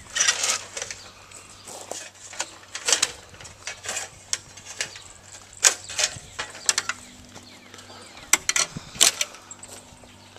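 Parts of an air-conditioning unit being pried, bent and broken apart by hand: irregular metallic clanks, knocks and creaks, several sharp strikes close together near the end.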